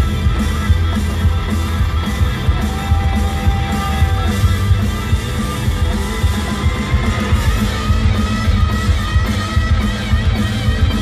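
Live country-rock band playing an instrumental passage: electric guitars over drums and bass, with a guitar holding two long notes in the middle.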